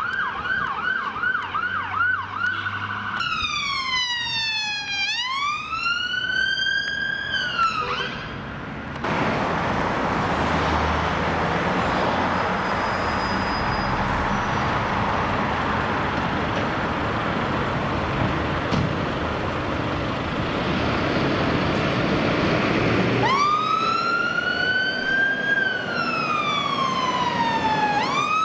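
A police van's electronic siren on a fast yelp, switching about three seconds in to a slow rising-and-falling wail that cuts off. A long stretch of steady vehicle engine and road noise follows. Near the end a fire engine's siren starts up again on a slow wail.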